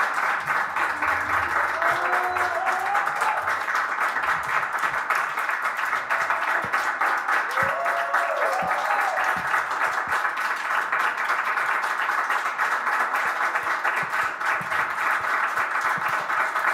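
Applause: dense, steady clapping, with a voice calling out briefly twice over it.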